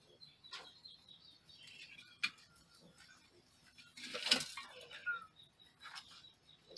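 Mice scrabbling over a wire fan guard and through grain: faint scattered clicks and scratches, a sharp click about two seconds in and a louder rustle about four seconds in, followed by a short chirp.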